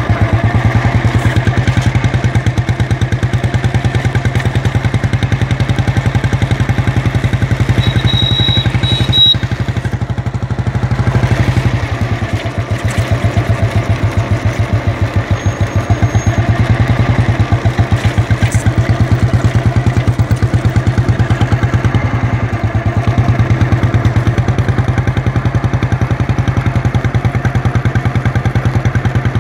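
Old Royal Enfield Bullet's single-cylinder four-stroke engine idling with a steady, evenly spaced thump. The level dips briefly about ten seconds in, then the beat carries on.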